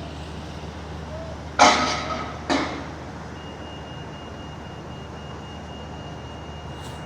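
Two loud metal clangs about a second apart, each ringing briefly as it dies away, from ride construction work, over a steady low rumble.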